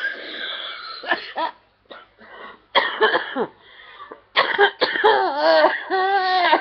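A woman in a fit of giggles: bursts of high, sliding laughter broken by coughing, with short gaps for breath.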